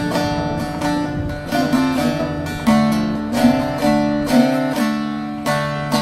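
Instrumental break of a Turkish folk song: plucked and strummed string instruments play the melody in sharp, repeated note attacks over a sustained low accompaniment.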